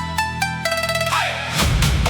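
Electronic dance music: a plucky synth melody in short stepping notes over a sustained bass, giving way about a second in to a rising noise sweep and a heavy bass hit as the track builds into its drop.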